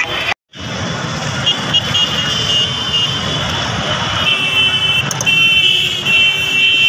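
Outdoor din of a milling crowd and motorbikes, with short high tooting tones coming and going from about a second and a half in. A brief dropout near the start.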